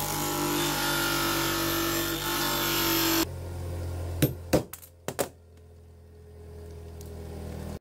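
Bench grinder running with a motorcycle roller chain held against its wheel, grinding down the heads of a link's rivet pins; the steady grinding stops abruptly about three seconds in. Then four metal-on-metal strikes of a hammer on a punch driving the pins out of the chain on a small anvil: two a moment apart, then a quick pair.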